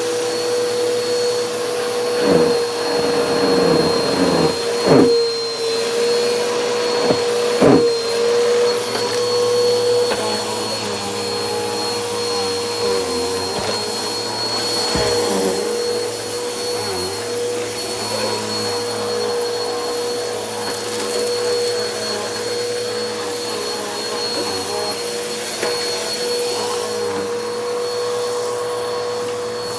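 Helix Turbo upright vacuum cleaner running over office carpet, its motor giving a steady whine over the rush of suction. A few sharp knocks and rattles come in the first eight seconds or so.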